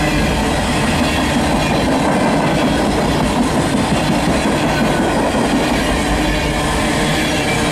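Mixed freight train rolling past, a steady noise of wheels on rail and cars going by.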